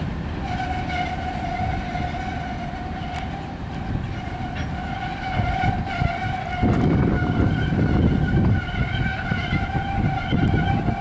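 Freight train cars rolling past with a steady high metallic squeal held throughout. The low rumble of the cars grows louder about six seconds in.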